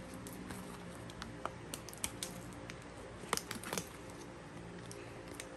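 Irregular crackles and clicks of plastic mailer packaging being handled and worked open, with a sharper cluster about three and a half seconds in.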